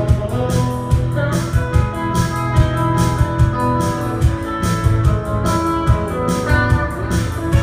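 Live band playing an instrumental passage without vocals: hollow-body electric guitar, strummed acoustic guitar and electric bass, with held notes over a steady beat.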